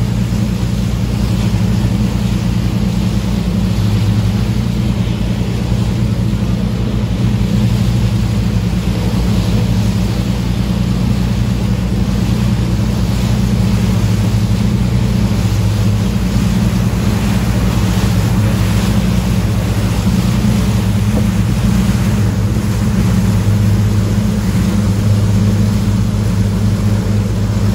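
A boat's engine running steadily under way as a low, unchanging drone, with the rush and hiss of water churning in the wake.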